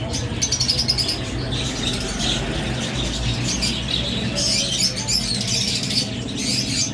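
A flock of small birds chirping and squawking together in a dense, continuous chatter, with many calls overlapping.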